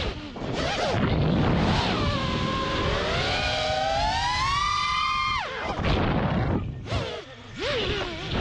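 Brushless motors of a five-inch FPV freestyle quadcopter (Lumenier 2206 2450kv) whining, the pitch rising and falling with the throttle. The whine drops away steeply twice, a little past halfway and near the end, as the throttle is cut and punched again.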